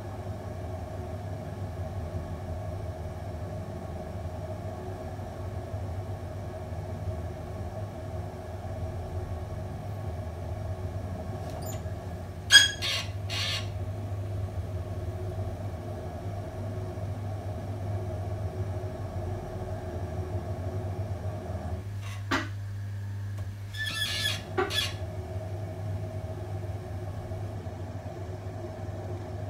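Potter's wheel motor running with a steady hum. A sharp knock a little before halfway through is the loudest sound. About three quarters through, the hum's higher tone drops out briefly and there are a few short squeaky clicks.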